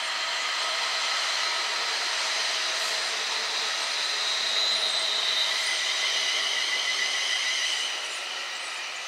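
Rake of passenger coaches rolling along a station platform at low speed, a steady rumble of wheels on rail with thin high-pitched ringing tones from the wheels. It fades a little about eight seconds in.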